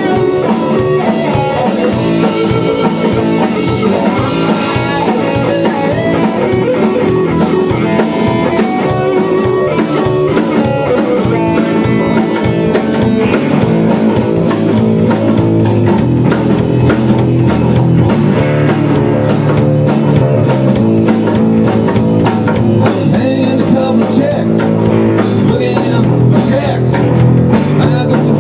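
Live rock band playing an instrumental passage: drum kit keeping a steady beat under electric guitar and a second guitar played flat across the lap.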